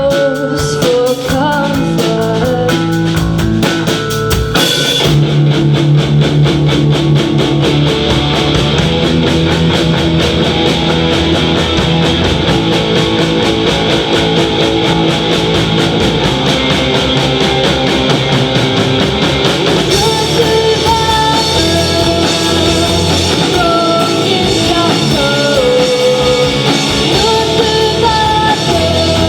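Live rock band playing loud: drum kit, guitar and sung vocals. The singing is heard at the start and again from about twenty seconds in, with a busier instrumental stretch between.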